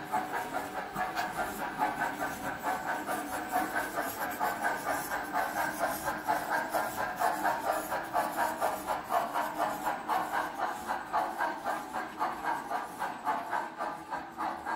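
Sound-equipped HO-scale model steam locomotive chuffing steadily, about three to four beats a second, with a hiss, as it hauls a train of ore cars.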